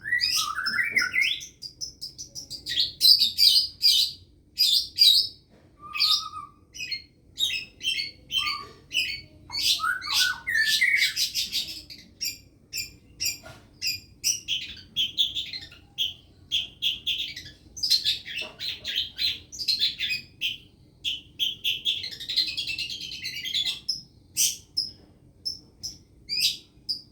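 A long-tailed shrike singing a lovebird-style song it has learned: long runs of rapid, harsh, high chirps in quick bursts with brief gaps, now and then a short gliding whistle.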